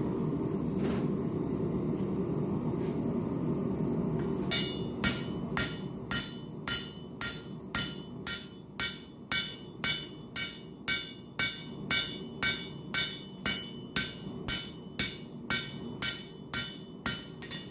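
Hammer striking a forge-welded Damascus steel billet, about two strikes a second starting a few seconds in, each strike giving a clear ring of several high tones over a steady low hum. The clear ring is the sign that the forge welds between the layers have set, with no dead space between them.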